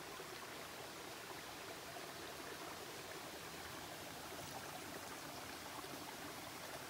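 Shallow creek running over rocks and gravel: a steady, soft rush of flowing water.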